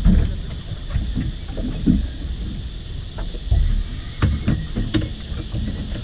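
Water lapping and slapping against a small boat's hull, with wind buffeting the microphone and a few light knocks.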